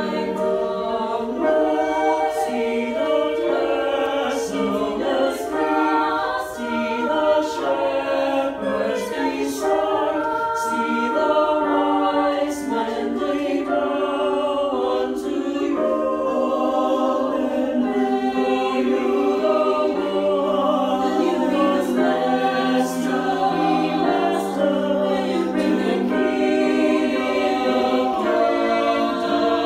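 Small mixed choir of men's and women's voices singing a cappella in close harmony, the parts moving together with sustained chords.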